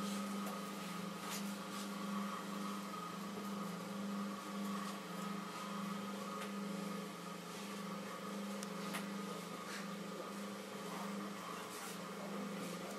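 Electric potter's wheel running with a steady low motor hum that swells and fades in an even rhythm, with a few faint clicks.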